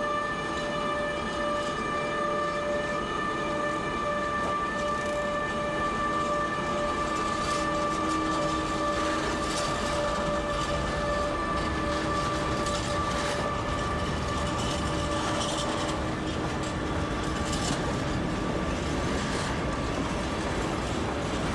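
A DB class 185 electric locomotive hauling a freight train away after a stop, with a steady electric whine of several held tones from the locomotive that fades as it moves off. Freight wagon wheels click and clatter over the rail joints as the wagons roll past.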